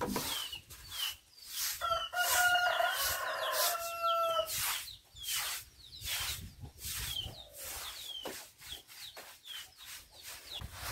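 A rooster crows once, a single long call of about two and a half seconds starting about two seconds in. Repeated swishing strokes of a broom run on the coop floor, with birds chirping high and brief throughout.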